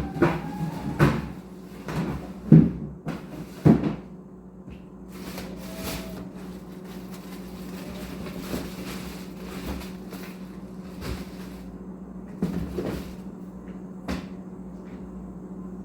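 Kitchen clatter: a run of knocks and clunks in the first four seconds and a few more near the end, over a steady low hum.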